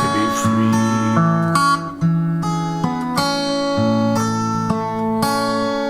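Acoustic guitar playing chords, changing chord every half second to a second, with a brief break about two seconds in.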